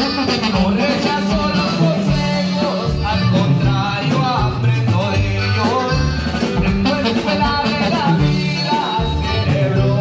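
Live band music with a man singing lead vocals into a microphone over a steady bass line, in a Latin style.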